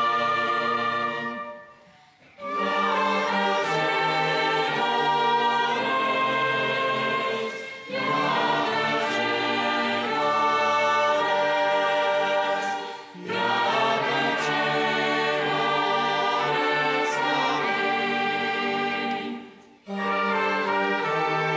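A mixed choir singing a Romanian hymn in sustained chords with an orchestra of strings, woodwinds and brass. The music breaks off briefly between phrases three times: about two seconds in, about thirteen seconds in and near the end.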